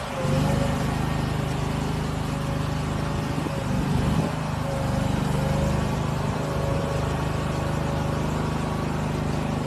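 Engine of heavy machinery running steadily. It picks up in level about half a second in, with no hammer blows heard.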